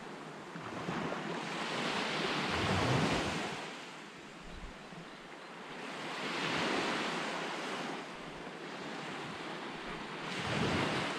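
Surf washing onto a pebble beach, swelling and fading in slow surges every few seconds, with wind buffeting the microphone.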